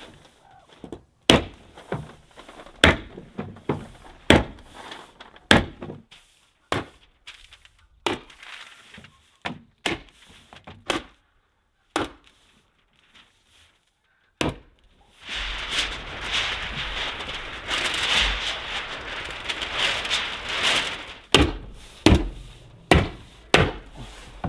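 Repeated sharp strikes of a hand tool fastening Tyvek housewrap to a cabin's wooden wall, about one a second. Around the middle the strikes pause, and there are several seconds of steady hiss-like noise before they resume near the end.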